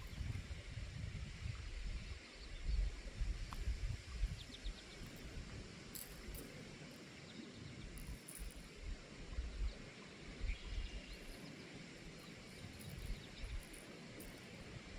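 Faint outdoor ambience, with irregular low rumbling on the microphone that comes and goes and a few faint ticks.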